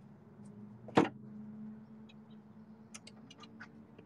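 A single sharp click about a second in, the headlamp's high/low-beam shutter solenoid snapping over, then a few faint ticks near the end, over a faint low hum.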